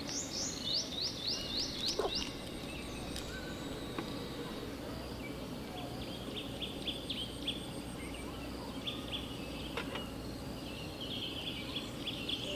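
Wild songbirds singing: a fast run of high, down-slurred chirps in the first second, then shorter chirping phrases later. Under them are steady low background noise and a few faint clicks.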